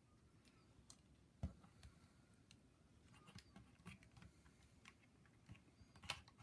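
Faint, scattered clicks and taps from an action figure being handled, with a soft knock about a second and a half in and a sharper click near the end.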